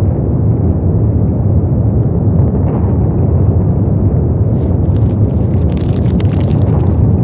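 Loud, steady low rumble. A crackling hiss joins it about four and a half seconds in.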